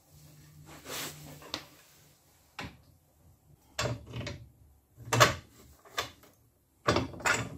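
Steel plow mount plate, roller fairlead and bolts knocking and clinking together while being held in place and lined up with the bolt holes: a run of separate short clunks, with a quick cluster near the end.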